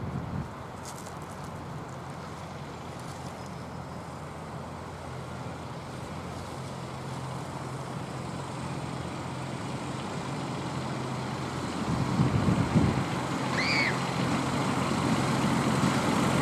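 Diesel engine of a Fenlow 4w-4wDH diesel-hydraulic miniature-railway locomotive running as it approaches, a steady low hum that grows gradually louder.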